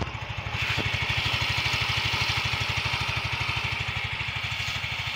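Yamaha Mio M3 125's single-cylinder four-stroke engine idling steadily and evenly, louder from about half a second in. It runs smooth with no cam chain ticking once the cam chain tensioner has been screwed in to take up the slack, pointing to a weakening tensioner as the cause of the tick.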